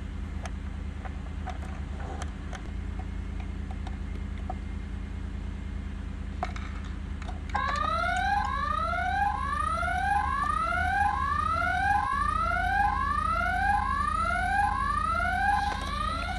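Toy jail alarm with a red beacon, sounding in repeated rising electronic whoops just under a second apart, triggered by the breakout; it starts about halfway through. Before it there is only a low steady hum.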